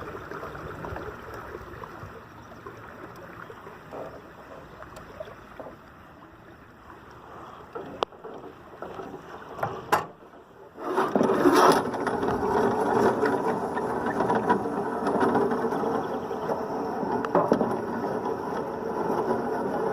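Water and motor noise around a canoe on a river, with a few sharp knocks a little before halfway. After a brief dip the noise comes back louder and stays so.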